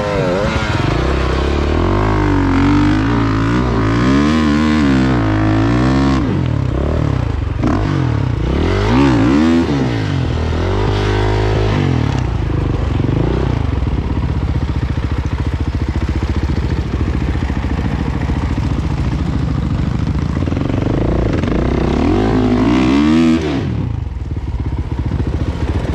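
Dirt bike engine revving up and down in repeated bursts under load, over a rough rutted section, with some clatter and scraping. It then runs steadier, rises once more and drops off sharply a couple of seconds before the end.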